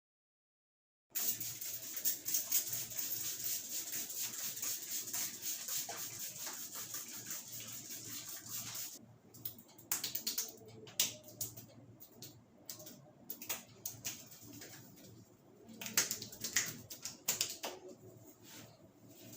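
Hands rubbing and scratching vigorously through a client's hair in a barber's head massage: a dense, fast crackly scratching that starts about a second in and runs until about nine seconds in, then gives way to scattered sharp crackles and taps.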